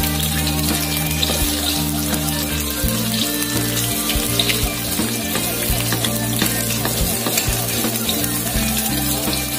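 Eggs sizzling and crackling in hot oil in an aluminium wok, with a spatula stirring and scraping them into a scramble.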